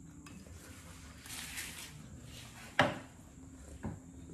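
Kitchenware clatter during a meal: a soft brief hiss about a second and a half in, then one sharp knock near three seconds and a lighter knock about a second later, as from a metal pot or dish being handled and set down.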